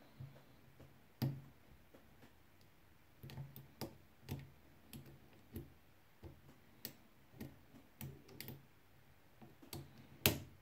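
Light clicks of a lock pick working the pins of an ABUS CISA four-pin euro profile cylinder held under tension, coming irregularly about one or two a second, with the loudest click near the end.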